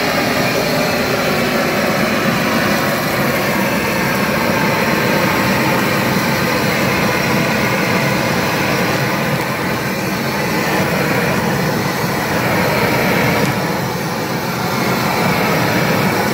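Gas weed-burner torch burning at full flame: a loud, steady rush that lights suddenly and holds without a break, dipping slightly now and then.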